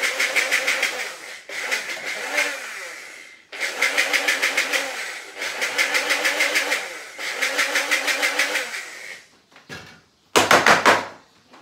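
Small electric grinder whirring as it blitzes chopped garlic and ginger into a paste, run in about five bursts of a second and a half to two seconds with short breaks between. A short, loud clatter comes near the end.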